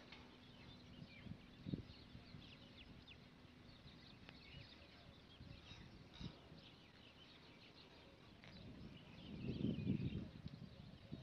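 Many birds chirping in quick, scattered short calls, with a low rumble of noise swelling up about nine seconds in and fading again.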